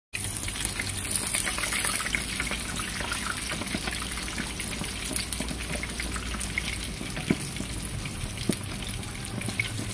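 Rolled pork frying in hot oil: a steady sizzle with scattered crackles and pops.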